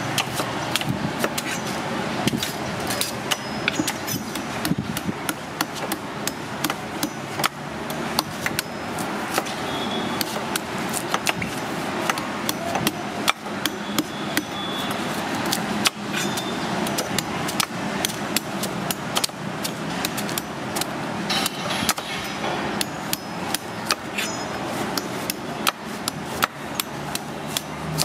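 Long knife chopping and shaving the fibrous husk of a young coconut against a wooden cutting board: quick, irregular sharp strikes, several a second, over steady background noise.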